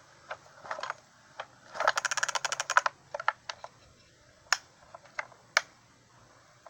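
Light clicks and taps of hand work on a chainsaw's carburetor and plastic housing, with a quick rattling run of rapid clicks about two seconds in and a few single clicks after.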